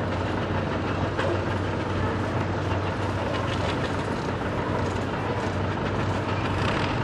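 A tractor engine running at a steady speed, a constant low hum under a broad mechanical noise.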